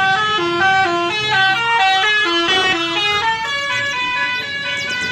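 A bus's musical multi-tone air horn (an Indonesian "telolet" horn) playing a quick tune of separate notes, stepping up and down several times a second.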